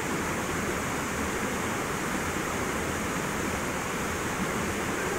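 A waterfall rushing steadily, the even roar of falling water.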